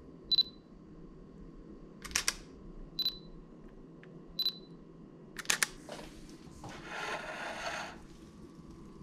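Digital camera taking pictures: three short high focus-confirmation beeps, about a second and a half apart, with sharp shutter clicks between them and a quick double click after the last. A rustle of about a second follows near the end.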